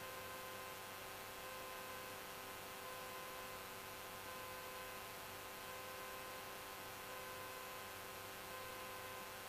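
Faint steady electrical hum and hiss with a few fixed whining tones, from the Cessna 172's cockpit audio feed in flight; no plain engine or propeller sound comes through.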